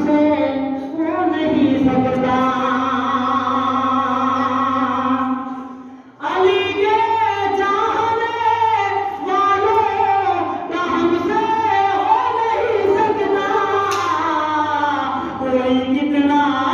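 A man singing a devotional verse in a melodic recitation style, holding one long note for about four seconds, breaking off briefly about six seconds in, then carrying on with rising and falling melodic phrases. A faint steady low hum runs underneath.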